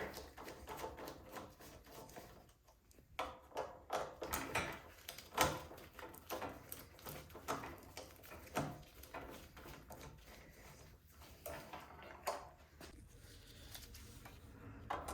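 Scattered light clicks, taps and knocks of hand tools and parts being handled while the cover comes off a snowblower engine, irregular and spaced out.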